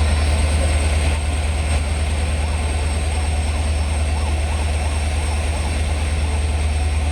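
Indian Railways WDP4D diesel locomotive humming steadily with a deep, constant drone from its EMD two-stroke engine, and a thin high whine above it.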